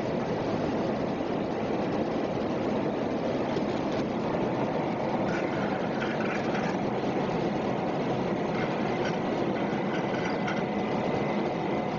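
Steady engine and airflow noise inside the cabin of an Airbus A340-300 test aircraft in flight.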